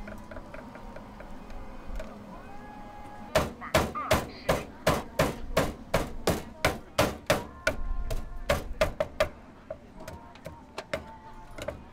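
Cleaver chopping food on a wooden cutting board: a quick run of about twenty strokes, three to four a second, starting a few seconds in and stopping a few seconds before the end.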